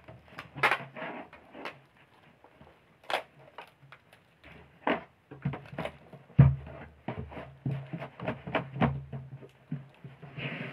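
Handling noise: knocks, clicks and thumps as a plastic mannequin leg form is moved about and denim shorts are pulled off it, with one louder thump about six seconds in.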